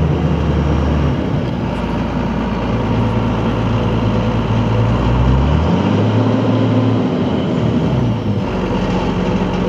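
Cat 315B L hydraulic excavator's diesel engine running close by. Its engine speed shifts several times, picking up about halfway through and easing back near the end.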